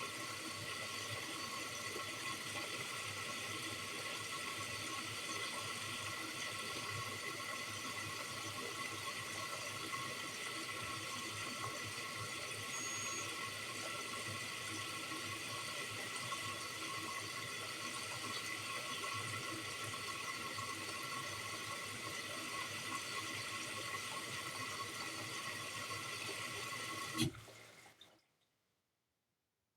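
Bosch Series 4 washing machine drawing in water for its first rinse: a steady rush of water through the inlet, with a faint whine. About 27 seconds in, a click, and the flow stops.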